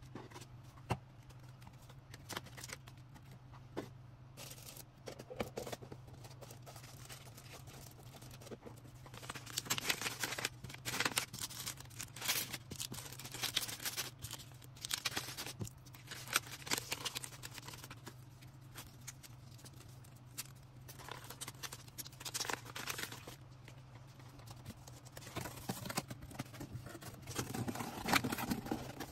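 Packaging handled while orders are packed: crinkling, rustling bursts with small taps and clicks, busiest in several stretches. A steady low hum runs underneath.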